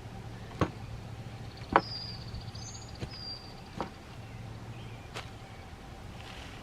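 Five sharp knocks at uneven gaps of about a second, the second one the loudest. A bird chirps high in the background between the second and third knocks.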